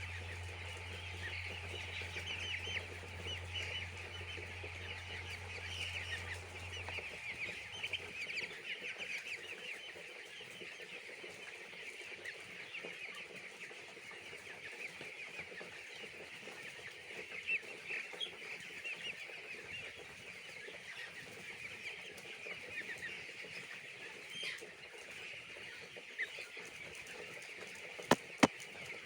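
A flock of broiler chicks peeping continuously, many short high calls overlapping. A low steady hum stops about a quarter of the way in, and two sharp clicks come near the end.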